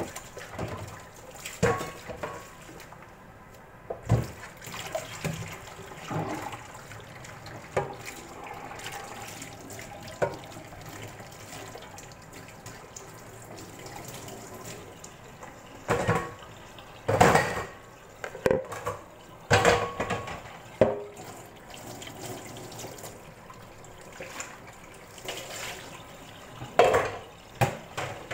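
Liquid pouring and dripping from a bowl onto a whole chicken in a metal roasting pan, with scattered sharp knocks and clatters of handling: a cluster of loud ones past the middle and a few more near the end.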